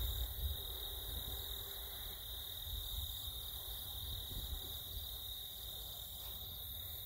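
Insects trilling steadily in a continuous high-pitched chorus, typical of crickets, with a low rumble of wind on the microphone underneath.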